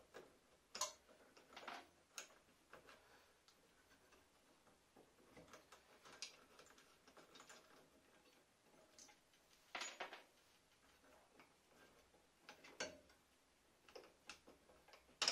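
Faint, scattered clicks and small metallic taps of a scroll saw's blade clamp being loosened and the blade freed from the wooden workpiece, with the saw switched off. A few sharper ticks stand out about a second in, at two seconds, around ten seconds and again near thirteen seconds.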